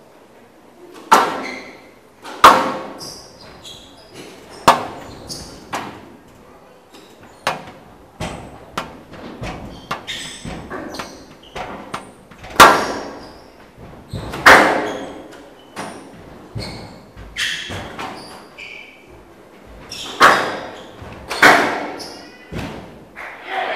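Squash ball being hit back and forth in a rally: sharp smacks of racket on ball and ball on the walls, every second or two, each echoing in a large hall. Short squeaks of court shoes on the floor come between the hits.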